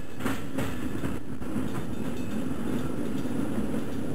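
Sampled sound of a subway train, a steady low rumble with a few clacks in the first second or so.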